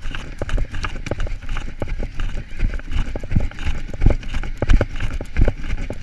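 A runner's footfalls on a paved path: a quick, regular run of deep thumps, jolting the carried camera with each stride.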